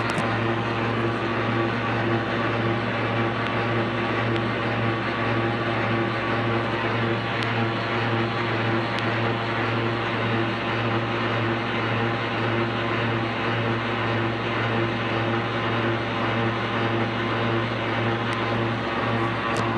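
1940 Monarch 10EE precision lathe running under single-phase VFD control: a steady machine hum with several held tones that does not change.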